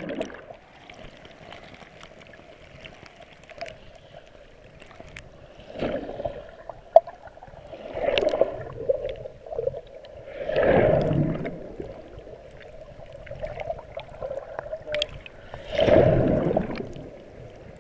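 Muffled underwater water noise heard through a GoPro's waterproof housing, swelling four times as water surges around the camera, over a faint steady hum.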